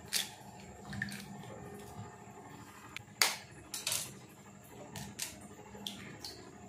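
Eggs being cracked against a ceramic bowl: sharp taps and clicks of shell on the bowl, one just after the start and a cluster from about three seconds in as the second egg is cracked and pulled open.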